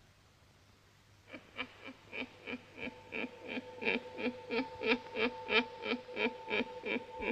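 Eerie synthesized soundtrack music: short pulsing notes repeat about three times a second, starting about a second in, and two steady held tones join about three seconds in.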